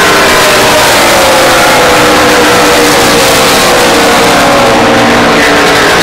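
Racing stock cars' V8 engines at full speed going past on the track, loud and continuous, the pitch dropping as the cars go by.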